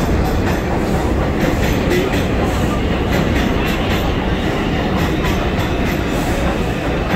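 New York City subway express train running along the platform: a steady loud rumble with the wheels clicking over the rail joints.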